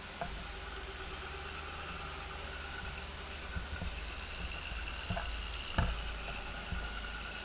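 V8 off-road vehicle's engine idling steadily, with a few short knocks, the loudest just before six seconds in.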